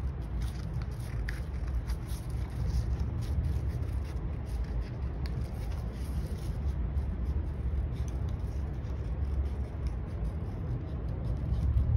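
Paper being handled at a craft table: faint rustles and light clicks over a steady low rumble.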